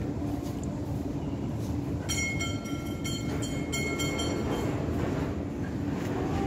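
Steady low rumble with a constant hum, likely a passing vehicle or machine. About two seconds in, a high steady whistling tone joins it for a couple of seconds.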